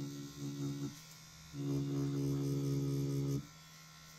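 Pen-style rotary tattoo machine running with a steady hum in two runs: about a second at the start, a pause, then about two seconds more, as the needle works synthetic practice skin.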